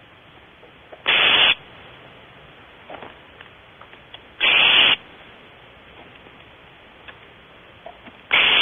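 Barn owl nestling giving harsh hissing calls, three of them each about half a second long and roughly three and a half seconds apart; this hissing 'snore' is the owlets' begging call.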